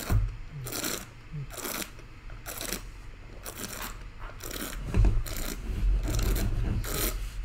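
A wine taster slurping a mouthful of red wine, drawing air through it in a run of short hissing sucks, about one a second, to aerate it on the palate. A low rumble joins in from about halfway through.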